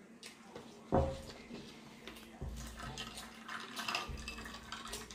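A person eating, close to the microphone, with a sharp thump about a second in and irregular crackly mouth and food sounds after it.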